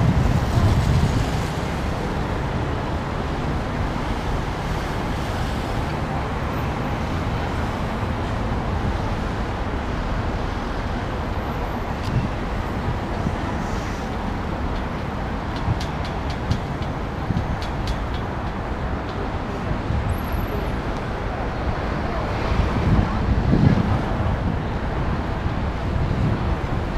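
Steady city road traffic noise, with a short run of faint clicks about two-thirds of the way through.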